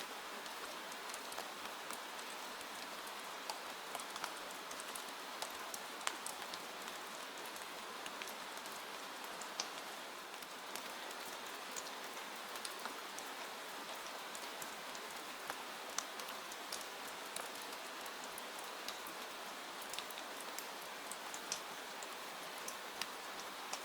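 Steady rain falling, an even hiss with many sharp, irregular ticks of individual drops hitting a surface.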